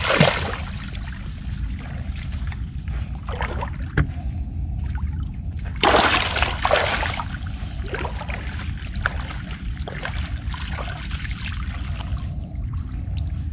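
Shallow water splashing and trickling as a barramundi is released by hand: a splash at the start and two more about six seconds in, over a steady low rumble.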